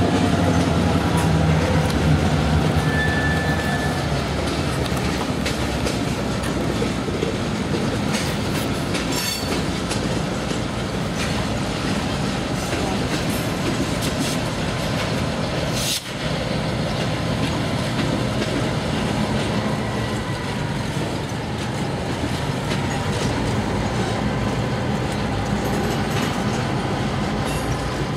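Canadian Pacific freight train rolling past: a steady rumble of steel wheels on rail with some clickety-clack and faint wheel squeal. The drone of its diesel locomotives comes through in the later part.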